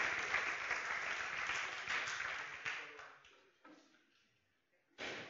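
An audience applauding, the clapping thinning out and dying away after about three seconds. Near the end comes a sudden thump.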